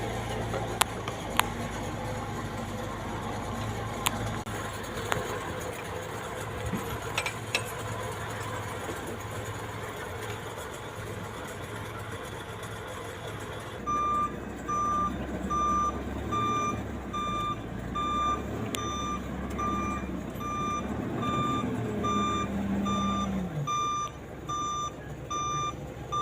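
A heavy machine's engine running steadily, with a few sharp clicks. About halfway in, its reversing alarm starts beeping at an even pace, somewhat faster than once a second. Near the end the engine note drops.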